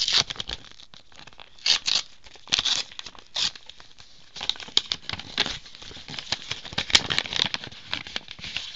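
A paper envelope rustling in the hands as it is opened and the card inside is pulled out, in short irregular bursts.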